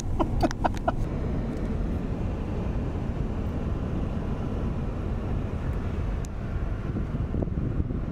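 Steady low rumble of an off-road truck driving on a trail, engine and tyre noise heard from inside the cab.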